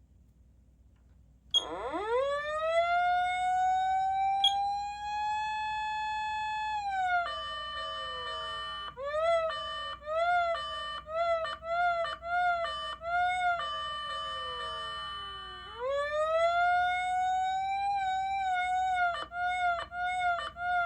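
Patlite SAP-500FBVZ electronic siren amplifier, Tokyo Fire Department specification, sounding its siren tones. After a second and a half of silence a wail rises and holds, then winds down under steady tones. A string of short rising whoops follows, about two a second, and then the wail rises again and wavers.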